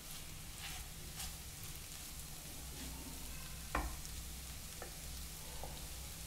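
A wooden spatula stirring and scraping frying scrambled egg and cabbage in a nonstick pan over a faint, steady sizzle. A few light knocks come through, the loudest about four seconds in.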